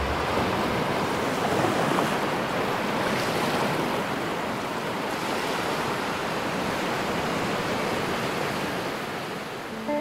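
Ocean surf breaking on rocks: a steady rushing wash of waves.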